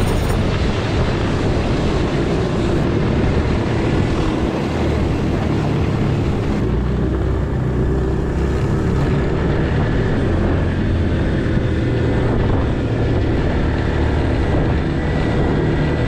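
Electric snowmobile riding over snow: a steady rushing noise of wind and the track on snow, with no engine sound. It cuts off suddenly at the end.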